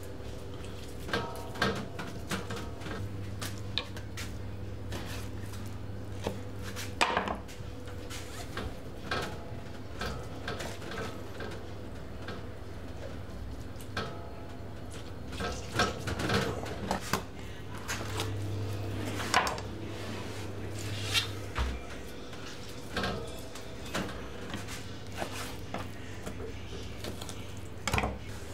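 Raw marinated lamb being threaded onto a vertical metal kebab skewer and pressed down by hand: irregular knocks, clicks and soft slaps of meat, hands and metal against a cutting board. A steady low hum runs underneath and cuts off suddenly a little past two-thirds of the way through.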